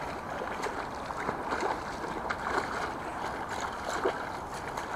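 Hooked pike splashing and thrashing at the surface as it is played in close to the bank, a run of irregular wet splashes.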